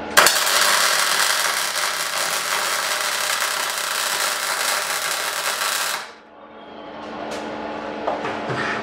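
MIG welding arc from a Bossweld MIG 156 with solid wire and Ar/CO2 shielding gas at the correct flow: a loud, steady sizzle that starts just after the beginning and cuts off suddenly about six seconds in. A low hum remains afterwards, with a few light knocks near the end.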